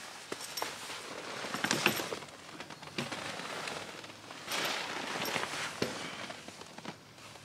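Handling noise: rustling with scattered sharp clicks, coming in two bouts, about a second and a half in and again about four and a half seconds in.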